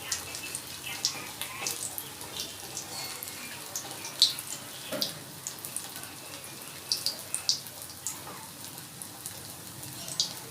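Batata vadas deep-frying in hot oil in a kadhai, browned on both sides and nearly done: a steady sizzle with frequent sharp crackles and pops.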